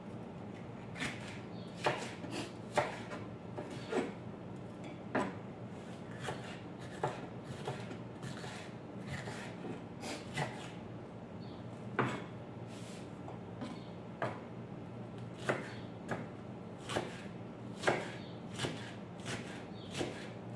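Knife slicing a green bell pepper on a cutting board: uneven knocks of the blade striking the board, about one a second and sometimes two close together, over a steady low hum.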